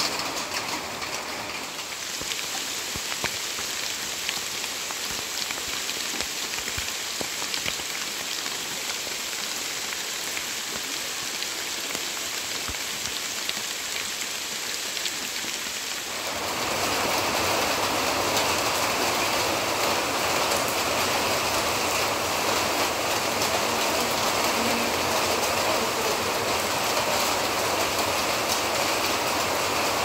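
Heavy monsoon rain falling as a steady hiss. About halfway through it becomes louder and fuller, with more of the lower part of the sound.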